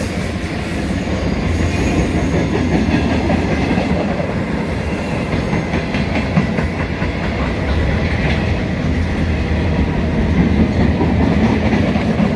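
Grain hopper wagons of a freight train rolling past: a steady rumble of steel wheels on the rails, with clicks from the wheels over the track.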